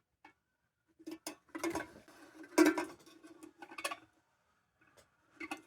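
Irregular light metallic clicks and clinks from the tin lantern and its parts being handled and bent into position, about a dozen in all, loudest near the middle.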